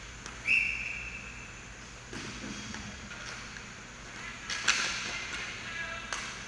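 Inline hockey play on a plastic sport-court rink: hockey sticks clacking against the puck and the rink surface, with a few sharp hits about four and a half seconds in. A brief high squeal sounds about half a second in.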